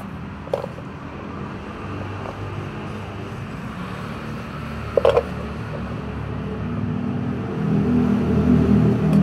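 Low engine rumble of a motor vehicle nearby, growing louder over the last couple of seconds. A sharp clink of the metal spoon against the plastic food tray sounds about five seconds in.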